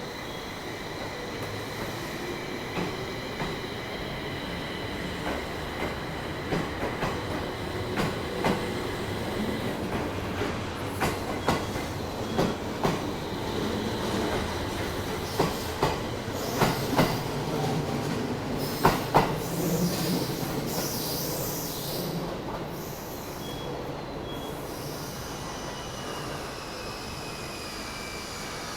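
JR East 701 series electric train running slowly through the station over rail joints and points. Its wheels clack, and the knocks grow louder and closer together through the middle, then fade as the train moves away.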